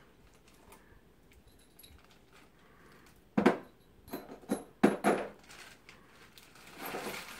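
Small metal parts clinking and rattling as they are handled, with a few sharp knocks and clacks in the middle, two of them loud.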